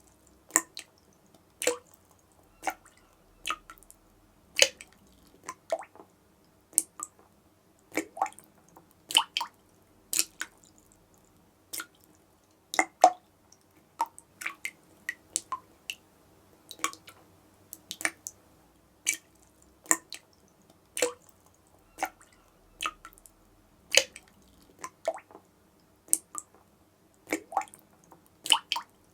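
Water dripping from a tap, drops landing one after another at uneven intervals, about one or two a second, each a short plink whose pitch changes from drop to drop.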